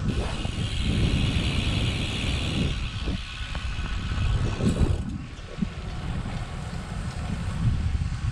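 Wind buffeting the microphone of a handlebar camera on a moving road bicycle: a dense, uneven low rumble. A steady high hiss runs over it and fades about five seconds in.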